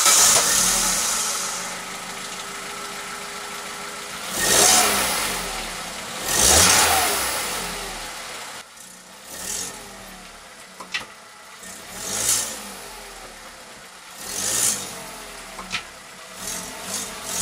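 Opel Corsa D car engine running and blipped on the throttle several times, each rev rising and falling, with a few sharp knocks in between. The engine is shifting on torn left and rear engine mounts, which the owner says knock when the throttle is played like this.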